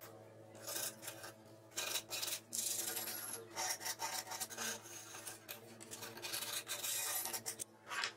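The cut edge of a plywood panel being sanded by hand, in quick, irregular back-and-forth rubbing strokes.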